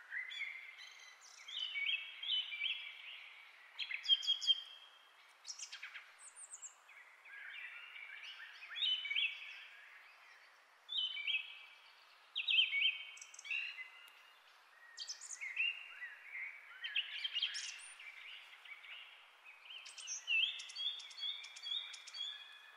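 Birds chirping and singing: short high chirps and trilled phrases come every second or two over a faint steady hiss.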